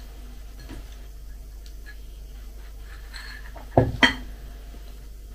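A spoon knocking against a bowl twice in quick succession about four seconds in, after a few faint spoon clicks.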